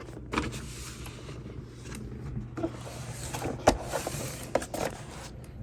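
Small electric motor of the radio-controlled truck running steadily, with scattered clicks and one sharp knock a little past the middle.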